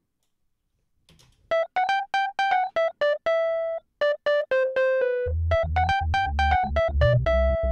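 Synthesizer melody of short, separate notes playing back from a music production project, starting about a second and a half in. A deep, pulsing low part joins a little past the middle.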